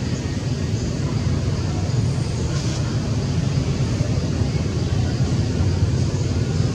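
Steady low rumble of outdoor background noise with a faint high hiss, unchanging throughout.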